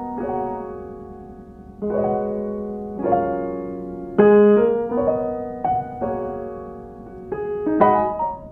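Background music: soft piano chords, a new chord struck every second or so and left to fade.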